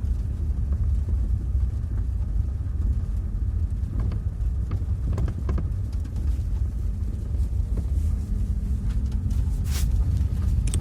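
Car driving with a steady road rumble, broken by a few short knocks from the right front suspension about four to five and a half seconds in and a sharper one near the end. The cause of the knock is unknown to the owner.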